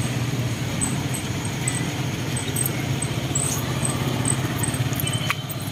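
Motorcycle and tricycle engines running in street traffic: a steady low engine hum over a wide wash of road noise. Faint short high-pitched chirps recur throughout.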